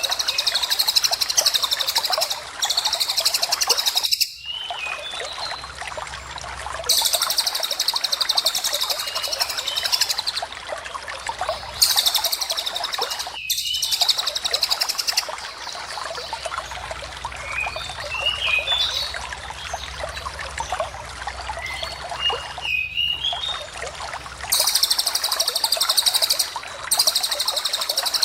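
Lovebird and cililin song: long, very high, rapid buzzing trills in three bouts, with short chirps in between, over a steady rush of flowing water.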